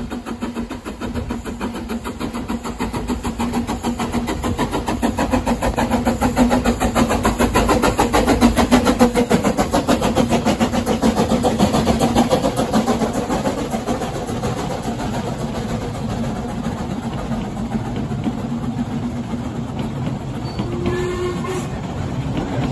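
Ffestiniog Railway Double Fairlie narrow-gauge steam locomotive approaching and passing close by with its train, a fast rhythmic beat that builds to its loudest about eight seconds in, then the coaches rolling past on the rails.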